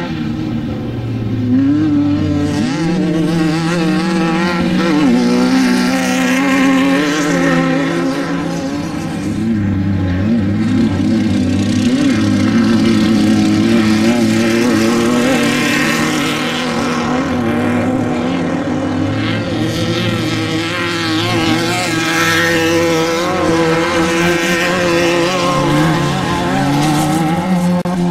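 Off-road desert race vehicle engines running hard at high revs, their pitch stepping and wavering up and down as they race.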